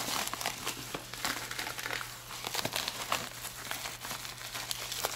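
Plastic bubble mailer crinkling and crackling as hands pull it open, with many small sharp clicks.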